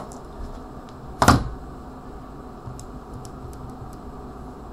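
Light clicks of calculator keys being pressed one after another, as a division is keyed in. A single brief louder noise comes about a second in, and a low steady room hum runs underneath.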